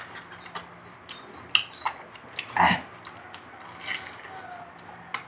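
People peeling and biting into sour fruit: scattered sharp clicks and crunches, with a brief vocal sound from one of the eaters about halfway through.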